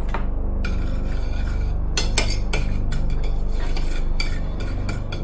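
A utensil stirring and scraping on a plate, with short clicks against it, mixing oil, minced garlic and seasonings together. A steady low hum runs underneath.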